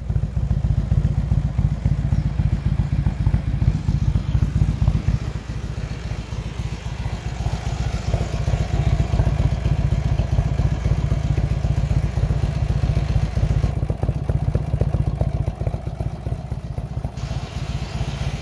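Exhaust of a 2007 Buell XB12S's air-cooled 1203 cc V-twin idling through a JP Racing aftermarket muffler, a steady, low, loping note.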